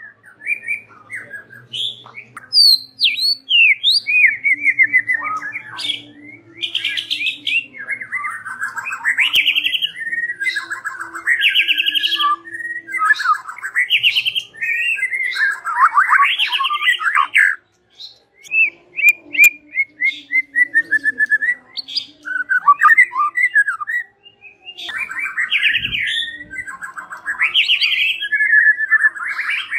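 White-rumped shama singing a long, varied song of clear whistles and fast trilled phrases, broken by a few short pauses.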